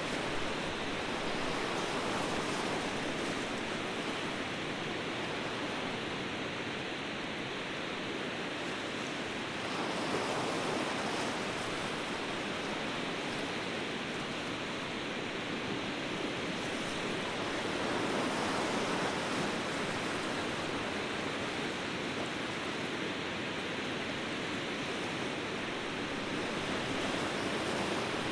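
Ocean surf: a steady wash of waves breaking, swelling a little about ten seconds in and again near eighteen seconds.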